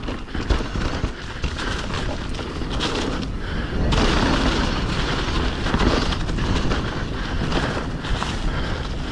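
Mountain bike riding fast on a dirt trail, heard from an action camera: tyre noise and rattling of the bike mixed with wind buffeting the microphone. It gets louder about four seconds in.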